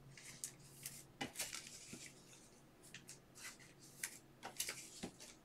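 Trading cards being handled and laid down on a tabletop: a run of faint, short rustles and clicks, several in a row, over a faint steady hum.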